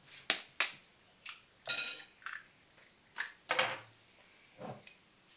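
Metal spoon knocking and clinking against a glass mixing bowl: a string of sharp separate taps, with one longer ringing clink about two seconds in.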